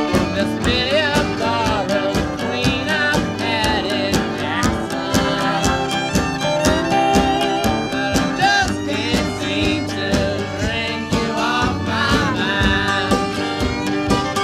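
Country song with fiddle, guitar and singing.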